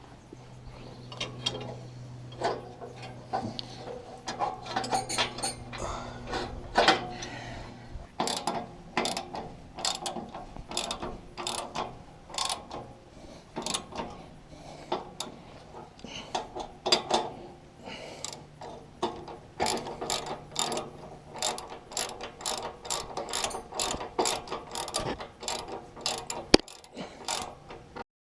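Hand tools working metal parts on the pickup of a John Deere 535 baler while its teeth are replaced: a long run of irregular metallic clicks and clinks, like a ratchet wrench turning and parts knocking together, with a faint low hum underneath at times. The sound cuts off abruptly near the end.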